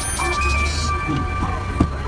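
Background music with held tones over a low hum, and a single sharp click near the end.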